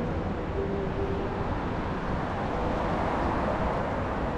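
Steady outdoor city background noise: a constant low rumble and hiss with no distinct events.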